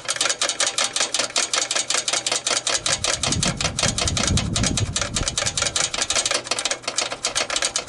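Ratchet wrench clicking rapidly and evenly as a bolt on the mower engine is turned, several clicks a second, with a low rumble about three seconds in.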